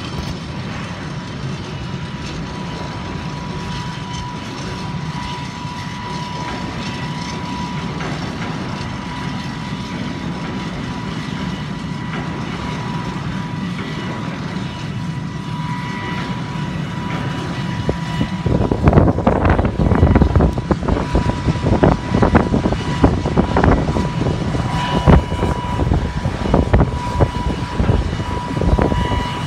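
A Bombardier Challenger 650 business jet and its tow tractor run steadily during pushback, a low rumble with a thin, steady high whine above it. From about two-thirds of the way in, loud irregular buffeting covers it, like wind gusting on the microphone.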